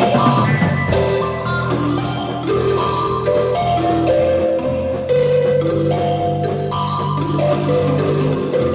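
Rock band playing improvised music: sustained guitar notes moving over a bass line, with drums keeping a steady cymbal beat.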